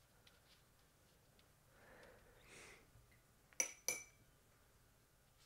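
Mostly near silence, then two quick clinks about a third of a second apart with a brief ringing: a paintbrush tapped against its water jar.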